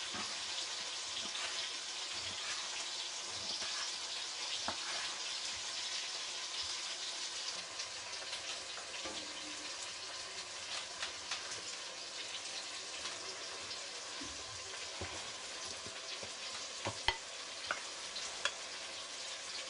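Chopped onions sizzling steadily in hot oil in a pot during the first sauté step. A few sharp light knocks come near the end.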